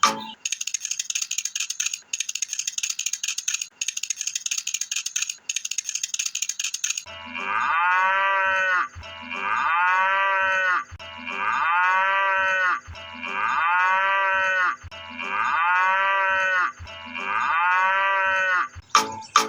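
A fast, high rattling clatter for about seven seconds, then a cow mooing six times, one moo about every two seconds. Each moo has the same rising-then-falling shape, the same recorded moo repeated.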